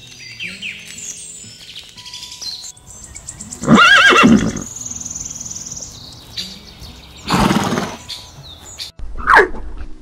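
A horse neighs loudly about four seconds in, with a second, shorter call a few seconds later, over faint bird chirping.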